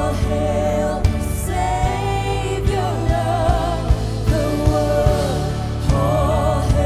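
Christian worship music: singing in long held notes with vibrato over a band with steady bass and drum hits.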